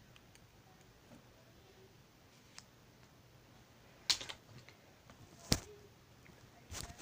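Handling noise: faint scattered clicks, then two sharp, loud clicks or knocks, about four and about five and a half seconds in, from a knife, its sheath and the handheld camera being moved about.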